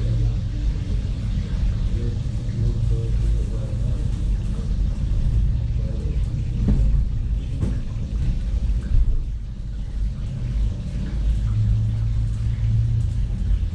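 Steady low rumble of a commercial kitchen, with a few light knocks from food prep at the counters and faint voices in the background.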